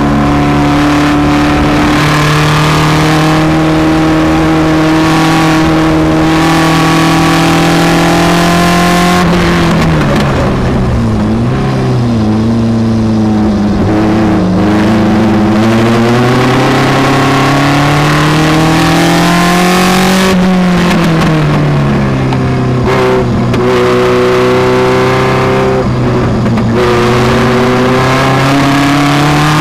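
Seven-style open track car's engine heard from the cockpit at speed on a circuit. It holds steady high revs, falls away with braking and downshifts about ten seconds in, climbs back under power, drops again around twenty seconds in, then rises once more as the car accelerates.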